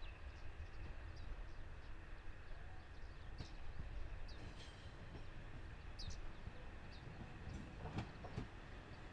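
Low rumble of a KiHa 40 diesel railcar, with its original DMF15HSA engine, drawing near. A few sharp knocks come about eight seconds in, and birds chirp faintly over it.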